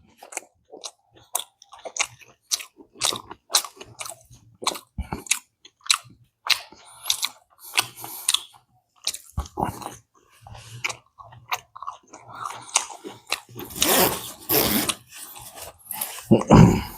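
Close-up mouth sounds of a person biting and chewing a piece of tikki dipped in raita chutney: wet, crunchy chewing in quick, irregular strokes, with a short low voiced sound near the end.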